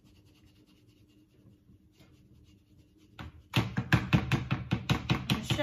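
Round metal flour sieve knocked rapidly against a stainless steel mixing bowl to shake flour through, about six sharp taps a second starting a little over three seconds in; before that only faint rustling of the sieve.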